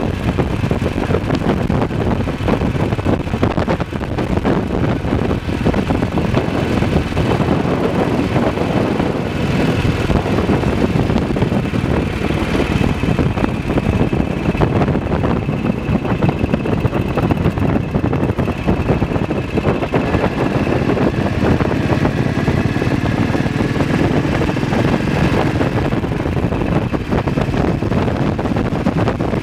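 BSA WM20 single-cylinder side-valve motorcycle engine running steadily at road speed, heard from the rider's seat, with wind noise on the microphone.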